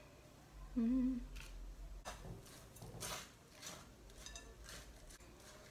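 A short, low hummed "mm" from a woman about a second in, then faint rustles and light clicks of hands working among pothos leaves and a pot.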